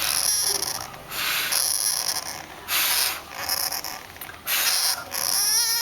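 Pet hamster snoring loudly: about five raspy, hissing breaths in a slow, uneven rhythm.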